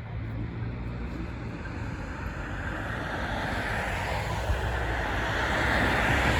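A steady low rumble with a rushing noise that swells louder over the second half, like a passing vehicle or wind and water.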